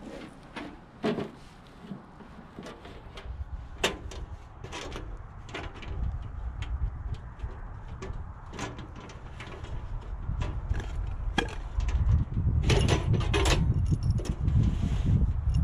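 Clicks and knocks of a Coleman two-burner propane camp stove being set down, opened and its burner grate handled, with a dense run of clicks about thirteen seconds in. A low rumble of wind on the microphone builds through the second half.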